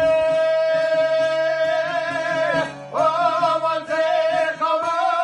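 A man singing a folk song in a high voice over two long-necked lutes plucked in accompaniment. He holds one long note, then starts a new phrase with quavering ornaments about three seconds in.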